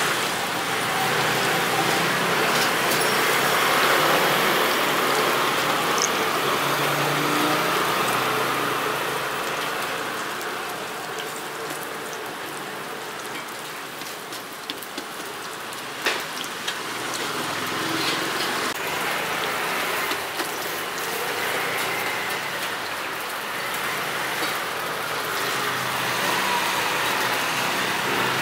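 Hot oil sizzling steadily as food fries, with a few sharp pops; the sizzle eases off in the middle and builds again toward the end.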